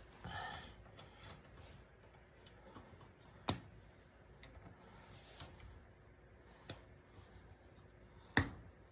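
Needle-nose pliers clicking against a wire as it is bent: three sharp clicks stand out, the last the loudest, among fainter ticks.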